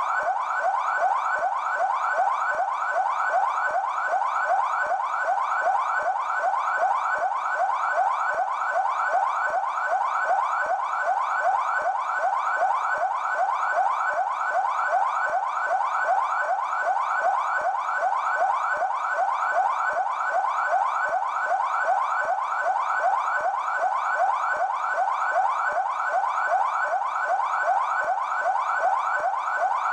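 PMESP police car siren in yelp mode: a fast, steady warble of rising pitch sweeps repeating several times a second without a break.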